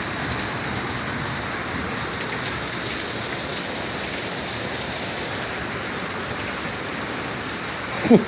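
Steady rain falling, an even hiss of drops on water and hard surfaces.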